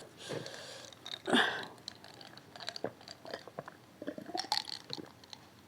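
Close-miked chewing of food, with irregular wet mouth clicks and a few louder bites.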